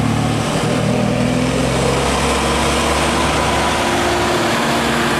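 A large road vehicle's engine running, most likely a bus, with road and tyre noise building as traffic passes close by.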